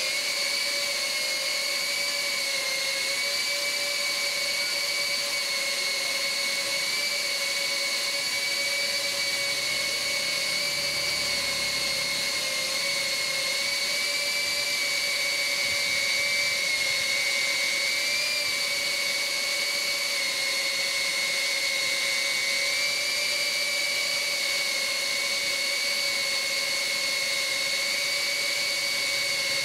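Mobula tiny-whoop FPV drone's small motors and propellers whining steadily in flight, the pitch wavering only slightly, over a high hiss.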